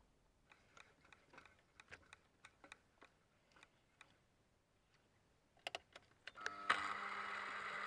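Scattered light metallic clicks as a spiral-flute tap is worked into a hole in a steel boring-bar holder on a mini lathe. A few sharper clicks follow, and then, about six and a half seconds in, a small machine motor starts and runs steadily with a humming whine.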